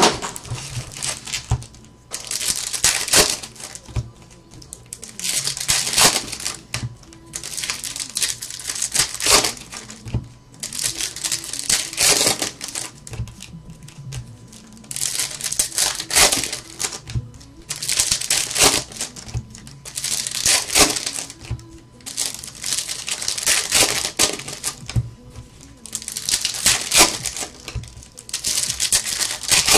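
Foil wrappers of Bowman Chrome baseball card packs crinkling in short bursts every two to three seconds as the packs are handled and opened.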